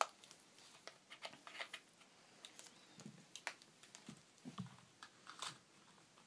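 Faint, scattered clicks and light taps from handling a laptop's AC adapter cord and plugging it in.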